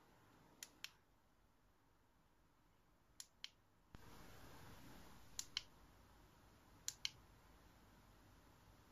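Push-button on a bicycle headlight-and-horn unit clicking, pressed and released in four quick pairs of clicks as the LED light is switched. No horn sounds.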